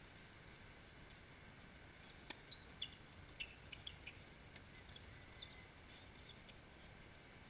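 Faint doubles tennis rally on a hard court: a sharp racket hit on the ball about two seconds in, then a quick cluster of short high squeaks and ticks, typical of sneakers on the court and further hits, over a steady hiss.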